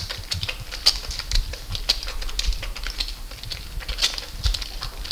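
Wet hands rubbing a bar of laundry soap together to work up a lather: a quick, irregular run of squelching, crackling clicks.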